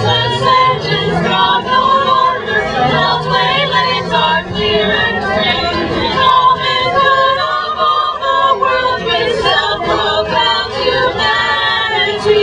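A group of voices singing together, choir-style.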